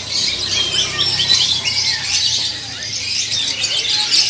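Many caged songbirds chirping and whistling at once: a dense, overlapping chorus of short high calls.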